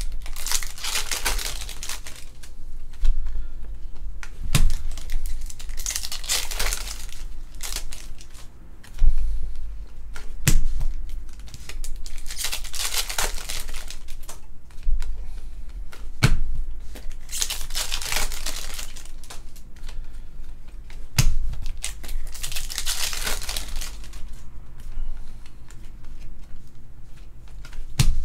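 Foil trading-card pack wrappers crinkling and tearing as packs are opened and the cards handled, in bursts about every five seconds, with a single sharp tap between bursts.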